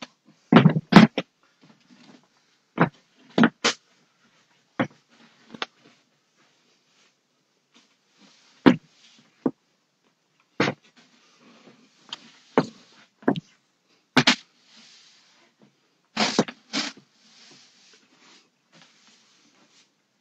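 Broom sweeping a floor: irregular sharp knocks and bumps, with soft bristle swishes between them.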